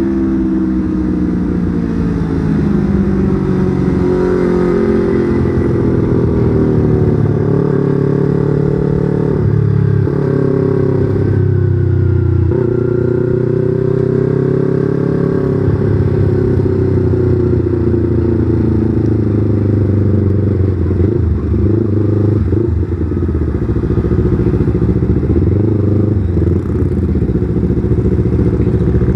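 Yamaha R25's 250 cc parallel-twin engine running under way, its revs climbing and falling, with brief drops around ten and twelve seconds in.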